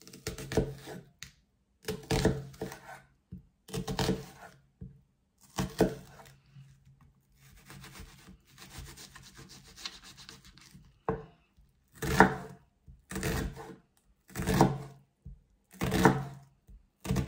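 Kitchen knife slicing and dicing a red onion on a wooden cutting board, the blade knocking the board in short runs of strokes every second or two, with a softer stretch of slicing near the middle.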